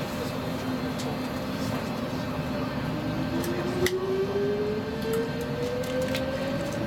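Stockholm Metro C14 train pulling away from a station. A steady low hum runs under it, and from about three seconds in a motor whine climbs steadily in pitch as the train gathers speed. A few scattered clicks sound over it.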